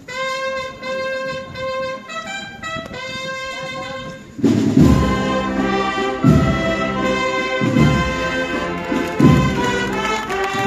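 A processional brass-and-drum band (agrupación musical) playing a march: a lone brass line on held notes, then about four seconds in the full band comes in, louder, with massed brass and a bass drum struck about every second and a half.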